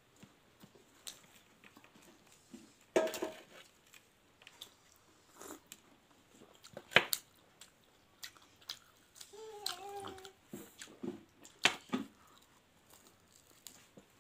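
Crispy battered fried fritters (Meitei bora) being bitten and chewed: scattered crunches and chewing, three louder sharp crunches standing out. There is a brief wavering tone about two-thirds of the way through.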